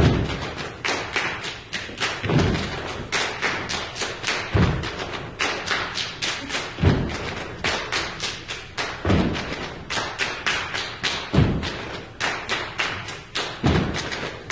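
Percussion ensemble playing a steady groove: a deep drum hit about every two and a quarter seconds under a run of sharp strikes, several a second.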